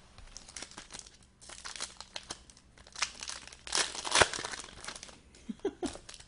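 Trading card wrapper crinkling and being torn open by hand, in irregular rustles with a louder stretch of tearing about four seconds in.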